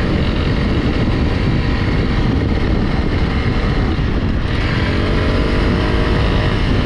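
Honda CRF Rally's single-cylinder engine running under way off-road, with a short change in its note about four seconds in.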